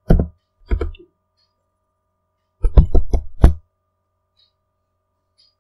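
Computer keyboard keys struck close to the microphone, heard as dull knocks: two single taps in the first second, then a quick run of about five taps about three seconds in.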